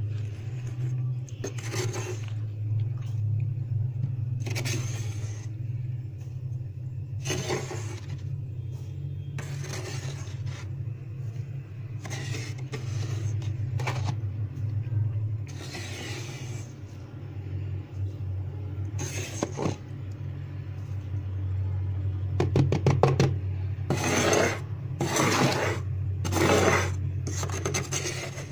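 Thick freezer frost being scraped by hand: a crisp, rasping scrape every second or two, the loudest strokes coming near the end, over a steady low hum.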